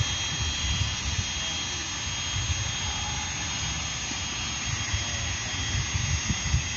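Steady hiss of gas rushing from a pressurised cylinder through a hose into a weather balloon being filled, with a thin steady whistle over it. Wind buffets the microphone with low, uneven rumbles.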